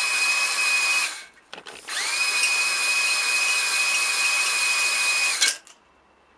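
Power drill spinning a three-arm stone cylinder hone inside the oiled cylinder bore of a BMW M54 engine block, giving a light hone to prepare the wall for new piston rings. The drill whines steadily, stops about a second in, spins back up with a rising whine, and cuts off near the end.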